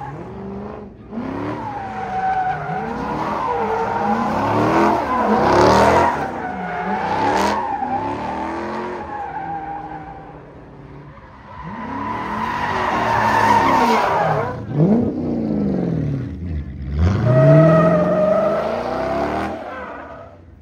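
A white Chrysler 300's engine revs up and falls back over and over while the tyres spin and skid through donuts on a loose, dusty surface. The revving drops off briefly about ten seconds in, then builds again.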